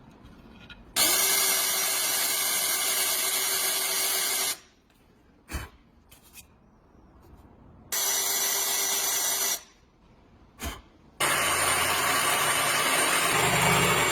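Electric power tool run in three bursts of a few seconds each, a steady motor whine under a harsh hiss, with a single sharp knock in each of the two pauses.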